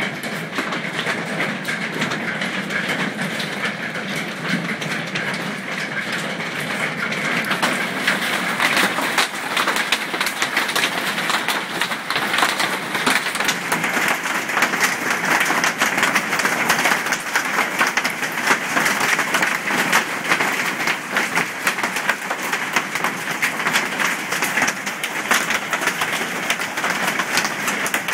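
Hailstones pelting a roof: a dense, continuous clatter of countless small impacts. It grows louder about eight seconds in.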